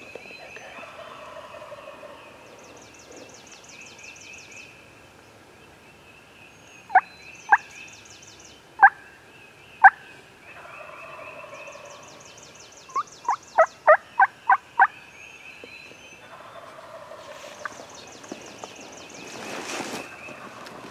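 Wild turkey calling: loud, sharp yelps, four spaced about a second apart and then a quick run of seven or eight, with a gobbler gobbling farther off and songbirds singing.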